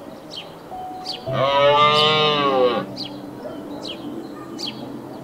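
A cow moose gives one long lowing moo, about a second and a half, that rises and then falls in pitch. Underneath are soft sustained music tones and a short high chirp repeating about once a second.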